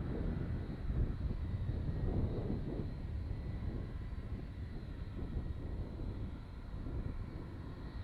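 Boeing 757-256's twin Rolls-Royce RB211 turbofans at taxi power: a steady low rumble with a faint high whine, slowly easing.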